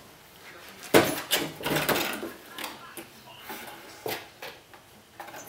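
Cardboard boxes being knocked and scratched by kittens playing inside them: a sharp bump about a second in, a second-long flurry of scrabbling and thumps, then a few lighter knocks.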